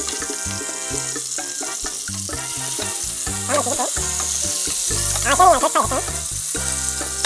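Beef top blade steaks sizzling steadily in melted butter with crushed garlic in a frying pan, with tongs shifting garlic and meat. Background music plays underneath.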